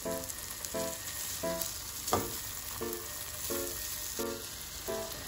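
Chopped smoked beef sizzling in melted butter in a nonstick wok, being sautéed and stirred with a spatula. A steady frying hiss runs under evenly spaced musical notes.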